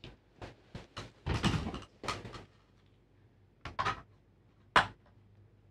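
Handling noise from a TV's One Connect cable being laid out and plugged into the main board: a brief rustle and a series of light clicks and knocks, the sharpest knock near the end.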